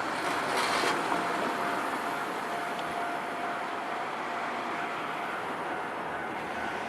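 Steady vehicle noise, louder in the first second, with a faint steady high tone running through it.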